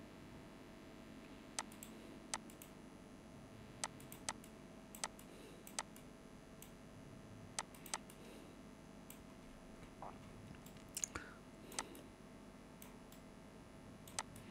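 Faint, irregular clicks of a computer mouse and keyboard, about a dozen sharp single clicks spread over low room tone.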